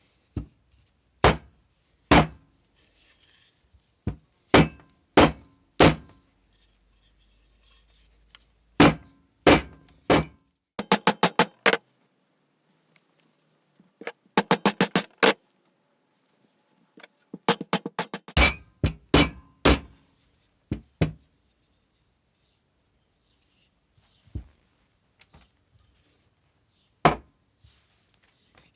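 Planishing hammer striking metal: single sharp knocks, then quick runs of light taps at about ten a second, and short clusters of blows.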